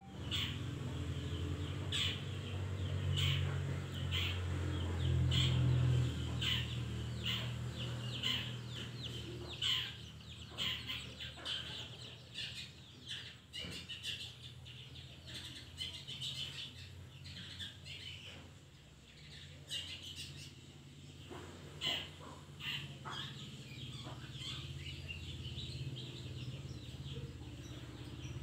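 Caged long-tailed shrike (cendet) calling: a run of short, sharp chirps and chattering notes, coming thick in the first half and more sparsely later. A low steady rumble runs underneath, strongest in the first six seconds.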